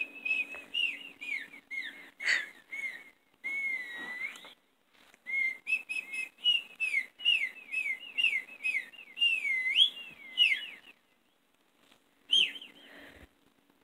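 Whistle-like chirps played through a small Bluetooth speaker: a quick run of short rising and falling whistle notes, a few each second, with wider swooping notes later on. They stop about eleven seconds in, and one more brief chirp follows a second later.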